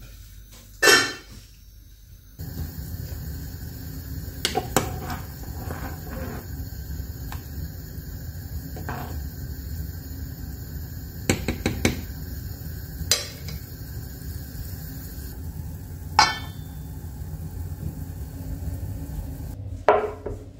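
Pot of broth boiling on a gas burner, a steady low rumble, with a ladle knocking against the pot several times as the vegetables are stirred. A metal lid is set on with a clank near the end.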